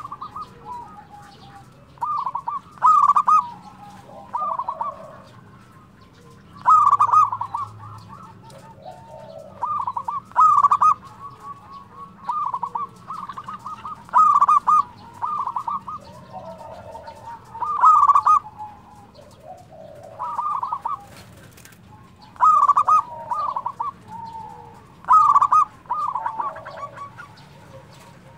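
Local zebra dove (perkutut) singing in short phrases of quick cooing notes, a phrase every one to three seconds.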